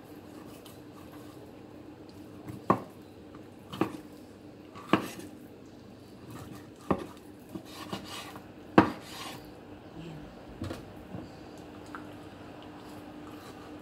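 Kitchen knife knocking and tapping against a wooden cutting board while cutting skin and bone from raw chicken breast: about seven sharp knocks at uneven spacing, under a steady low hum.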